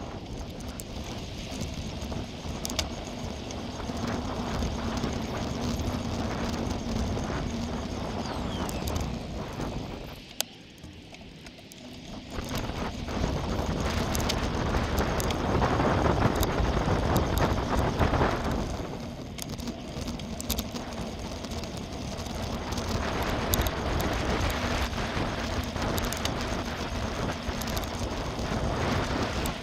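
Bicycle riding noise picked up by a bike-mounted camera: tyres rolling over a gravel path and then tarmac, with wind noise and frequent small rattles and clicks from the bike. It quietens for a couple of seconds about a third of the way in, then grows louder.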